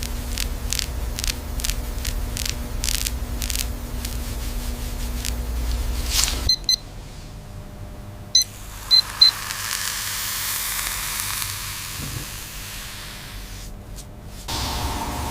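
Rhythmic short strokes of work over a low hum. After a cut come a few short high electronic beeps, then a steady hiss like a spray or steam jet.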